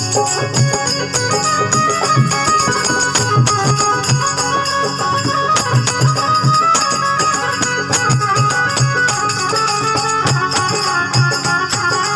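Electronic keyboard, the 'organ' of Rajasthani folk bands, playing a ghoomar folk tune: a melody over a steady, even percussion beat.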